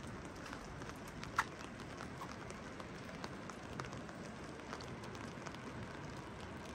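Steady rain with drops ticking on hard surfaces, and one louder sharp tick about a second and a half in.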